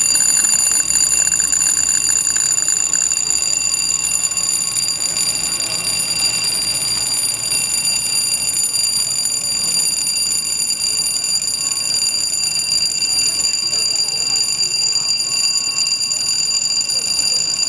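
Lock-gate warning alarm: an electric alarm ringing steadily without a break, sounding while the lock gate and its walkway swing.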